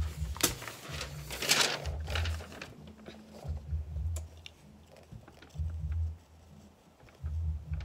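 Sheets of notebook paper rustling and crinkling as they are lifted and held up, loudest in the first two seconds, then only small scattered crackles. Several low thumps of handling come through as well.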